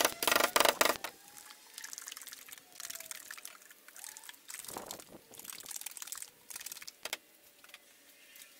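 A quart can of marine topside paint being handled and swirled to mix in anti-skid grit. A cluster of loud sharp clatters comes in the first second, then softer swishing and rattling in uneven bursts.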